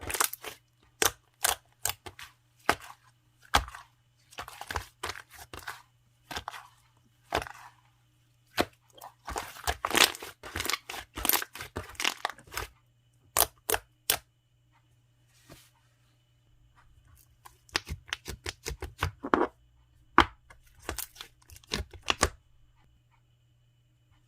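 Chocolate jiggly slime being squished and pressed by hand, giving irregular clusters of sticky crackles and pops that stop about 22 seconds in.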